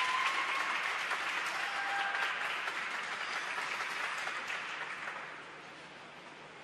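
Audience applauding, fading away about five seconds in.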